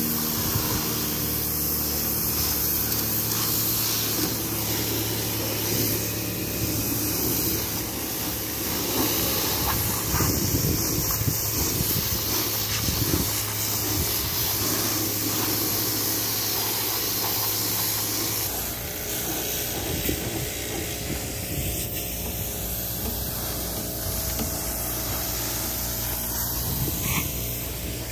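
Pressure washer wand blasting a jet of water onto a fibreglass boat's transom and swim platform: a steady hissing spray over the washer's low motor hum. About two-thirds of the way through, the spray sound thins and drops a little while the hum goes on.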